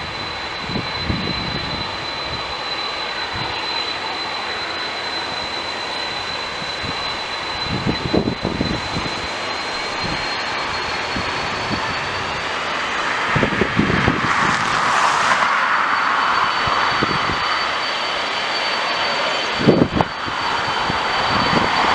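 Airbus A330 jet engines running at taxi power as the airliner rolls toward the microphone: a steady high whine over a broad roar. The whine rises slightly in pitch about halfway through and the roar swells near the end. A few low thumps from wind gusts hit the microphone.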